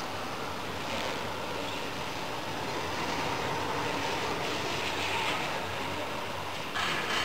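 QH650 UV coating machine running, a steady mechanical whir with a low hum underneath, jumping up in level near the end.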